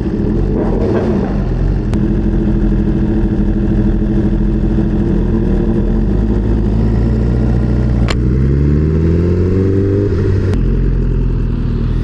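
A motorcycle engine idles steadily. About eight seconds in it revs up, rising in pitch for about two seconds, then drops back to idle. A few sharp clicks sound along the way.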